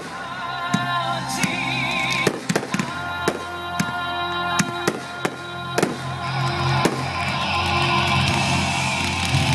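1.4G consumer fireworks bursting with sharp bangs at irregular intervals, about nine in all, over music with guitar. In the last few seconds a thicker hiss builds as a fan of comets is launched.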